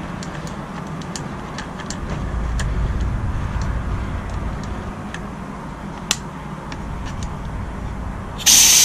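Faint ticks and a sharp click as the grip screw cap of a Crosman Z77 BB gun is turned down on a CO2 cartridge, then near the end a loud hiss of CO2 escaping as the cartridge is pierced: a little gas leaks out at first.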